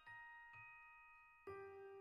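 Quiet background music: a few struck notes ring out and fade, one at the start, one about half a second in and a lower one about one and a half seconds in, over a faint steady beat.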